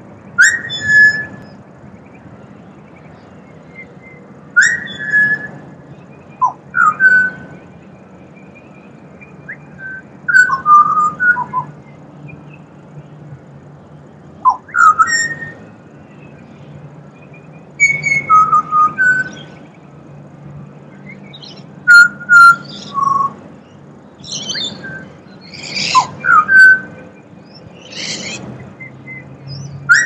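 Pied butcherbird singing: short, clear fluting whistled phrases, some sliding up or down in pitch, repeated every few seconds with pauses between, over a faint low hum.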